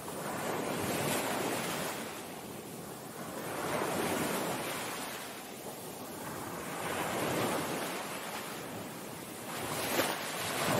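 Waves crashing on a Great Lake shore: a wash of surf that swells and fades about every three seconds.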